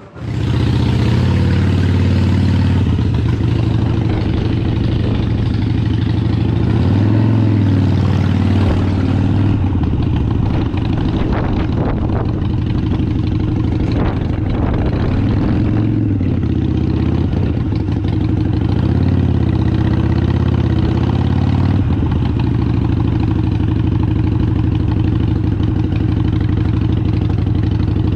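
Harley-Davidson Sportster 883 Iron's air-cooled V-twin engine running as the motorcycle is ridden, its pitch rising and falling a little several times with the throttle.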